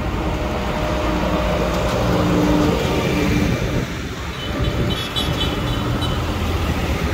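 Diesel farm tractors driving past close by, their engines rumbling steadily.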